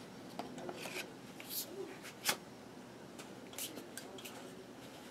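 Faint rubbing and scraping of PVC pipe sections and a tape-wrapped wooden dowel being handled and slid together, with a few light clicks, the sharpest about two seconds in.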